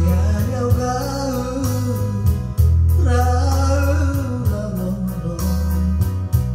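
A man singing into a microphone over his own electronic keyboard accompaniment, with held deep bass notes and a steady, even beat.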